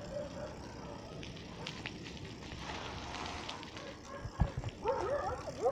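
Riding a bicycle over a rough concrete road: a steady rumble of wind and road noise, with a hiss of tyre noise around the middle and a sharp knock a little after four seconds. A brief call with changing pitch comes near the end.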